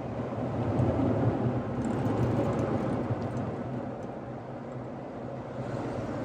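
Car wash dryer blowers blasting air over the Jeep's roof and soft top, heard from inside the cab as a steady rumbling rush. It swells about a second in and eases off after about four seconds.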